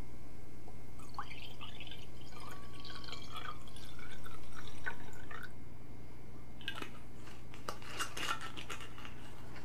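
Red wine gurgling and splashing as it is poured from a glass bottle into a wine glass for a few seconds. Afterwards come a few light clicks and knocks, over a steady low hum.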